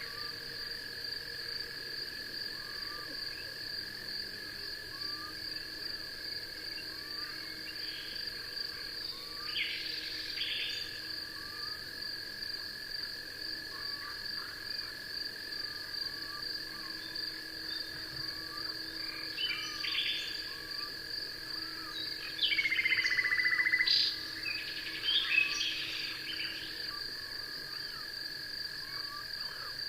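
Night insect chorus: a steady, continuous trilling at two high pitches, with many small repeated chirps and scattered short calls over it. About three-quarters of the way in, a louder pulsed call sounds for about a second and a half.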